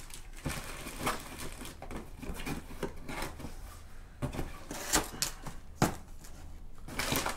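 Cardboard boxes and plastic packaging being handled while parts are unpacked, with rustling and scattered short knocks, the sharpest two about five and six seconds in.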